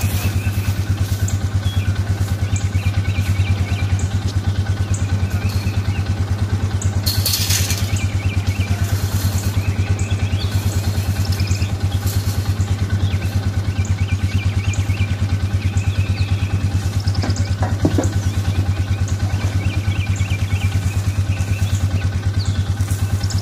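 Utility vehicle's engine idling steadily with an even, fast low pulse. A brief clatter about seven seconds in.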